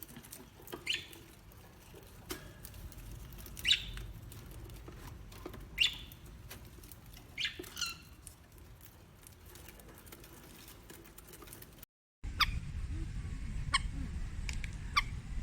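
Short, high chirps or squeaks from a small animal or bird, single or in a quick pair, every couple of seconds over a faint steady background; about twelve seconds in it cuts to a low rumble with a few sharp clicks.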